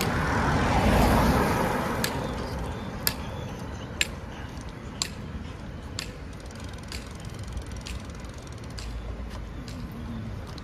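Bicycle clicking sharply about once a second as it rolls. A rush of passing traffic swells and fades over the first two seconds.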